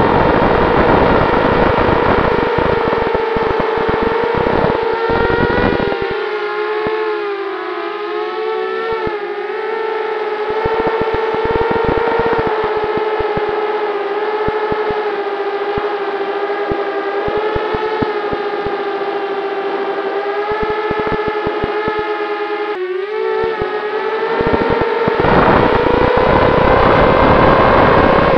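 QAV210 FPV racing quadcopter's brushless motors and propellers whining steadily, the pitch wavering up and down with throttle changes. There is a brief dip about 23 s in, then the whine climbs higher and louder near the end. Low wind rumble buffets the onboard microphone at the start and again near the end.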